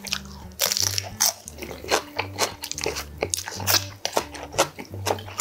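Raw green chili pepper being bitten and chewed, with many sharp crisp crunches in quick succession. Background music with a repeating low bass pulse plays underneath.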